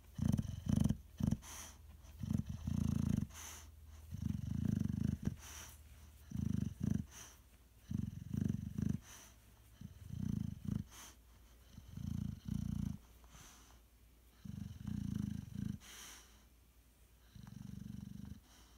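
A sleeping boxer dog snoring, a low rasping snore about every two seconds, some broken into quick double or triple snorts. A few brief clicks fall between the snores.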